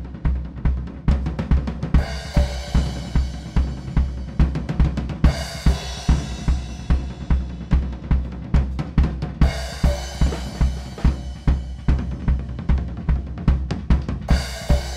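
Acoustic drum kit played solo: a steady bass drum beat about two to three times a second under busy snare and tom strokes, with a cymbal crash near the start and then about every four seconds.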